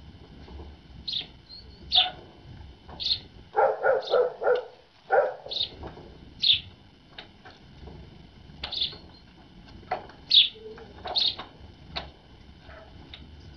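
Great tits calling at a winter feeder, short high chirps coming roughly once a second. About four seconds in there is a quick run of soft, lower knocks.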